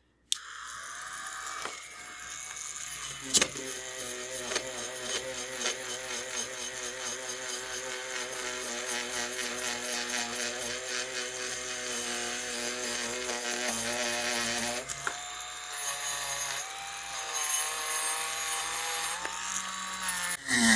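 Proxxon rotary tool switched on and running with a steady whine while cleaning casting flash off a cast-metal model locomotive body. Its pitch shifts a few times, and there is a sharp click about three and a half seconds in.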